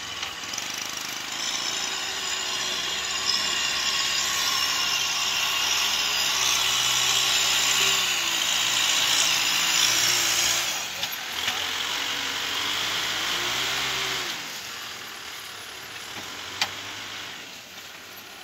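Kubota M6040SU tractor's diesel engine pulling a loaded trailer through mud, its pitch rising and falling with the load. A strong hiss lies over it for the first ten seconds or so. The engine sound dies down about fourteen seconds in.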